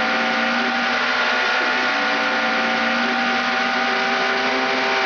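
Speedboat engine running steadily at high speed, with a steady rush of water under the hull.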